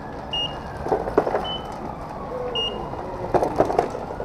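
Bicycles rattling and clattering over cobblestones, in two short loud bursts about a second in and again near the end. A distant siren wails slowly up and down throughout, with a few brief high beeps.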